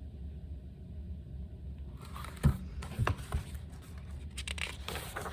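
Low steady room hum; about two seconds in come a few sharp knocks and rustling, with more rustling near the end, the sounds of handling in a pause of the reading.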